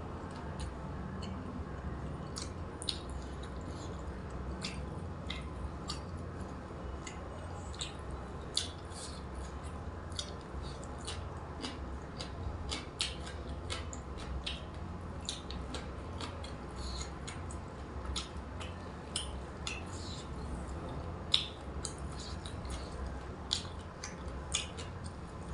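Someone eating: wet chewing with irregular sharp mouth clicks and smacks, over a low steady hum.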